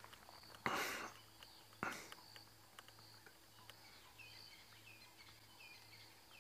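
Quiet bush ambience: a faint steady insect drone and a low hum, with a short rustling burst about a second in, a click near two seconds, and small bird chirps from about four seconds in.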